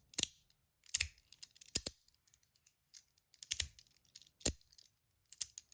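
Stainless steel and copper HiFi Boy fidget clicker being flipped and snapped shut, giving sharp metallic clicks about once a second, some in quick pairs.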